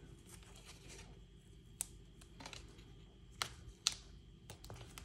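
Quiet handling of cardstock and double-sided adhesive tape, with three sharp little clicks: one about two seconds in and two close together a little later.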